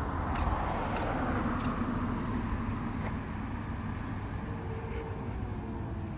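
Outdoor street noise with a car going by, its sound sweeping down and slowly fading, and a few faint ticks.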